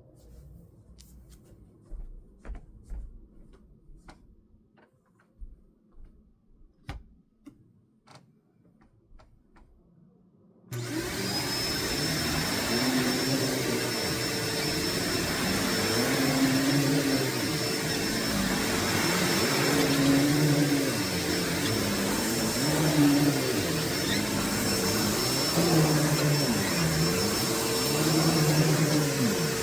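For about ten seconds only scattered light clicks and knocks are heard. Then a Hoover Deluxe Elite Rewind U5509-900 upright vacuum cleaner switches on and runs, with a high steady whine over a lower hum that rises and falls every two to three seconds as it is pushed back and forth.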